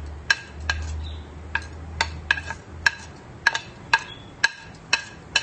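Urad dal frying in hot olive oil in a stainless steel pan: sharp, irregular pops, about two a second, each with a short ring from the pan, over a low steady hum.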